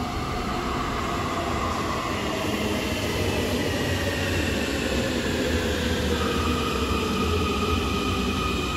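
Munich U-Bahn train arriving at the platform and braking. Its electric drive whines in several tones that fall in pitch as it slows, over a low rumble from the running gear.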